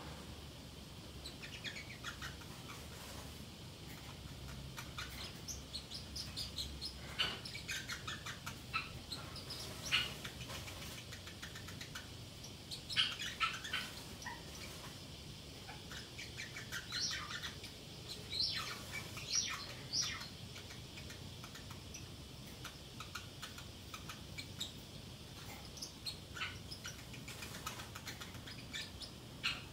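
Pacific parrotlet chirping and chattering to itself in short, scattered bursts of high chirps, busiest around the middle.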